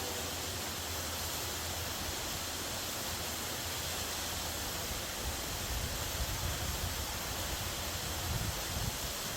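Waterfall rushing steadily. From about halfway through, a low, uneven rumble comes in under it.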